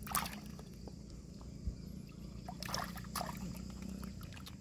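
Water splashing and dripping in short bursts as hands scoop clams out of a shallow pool, once just after the start and again about two and a half to three seconds in, with a light click between.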